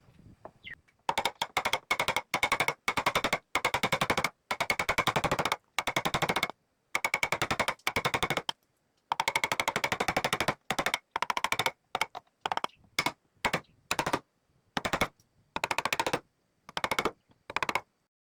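A power tool hammering very rapidly in repeated bursts, each a fast train of sharp strikes lasting from a fraction of a second to about a second and a half, with short pauses between.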